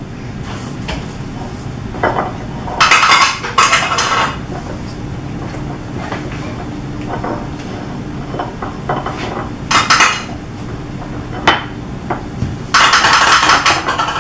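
A spatula stirring and scraping cake batter in a mixing bowl, in several short bursts of scraping with light knocks against the bowl.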